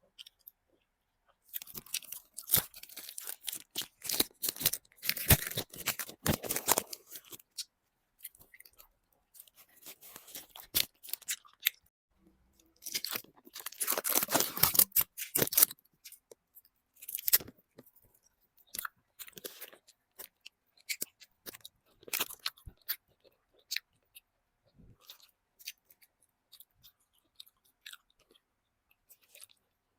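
Close-miked chewing and crunching of chocolate, in two longer dense bursts with scattered smaller mouth clicks and chews between them.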